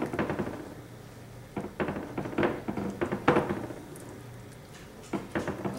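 Spatula scraping and tapping against a glass baking dish as thick sauce is spread over chicken pie filling, in several short spells of clicking and scraping.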